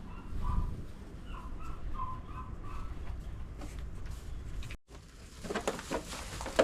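A quick series of short, squeaky animal calls over a low rumble of wind on the microphone, followed a couple of seconds later by rustling and knocking.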